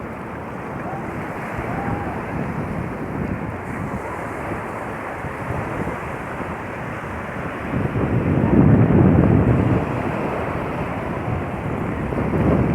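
Sea waves washing onto the shore, with wind buffeting the microphone; a bigger wave surges in about eight seconds in and another near the end.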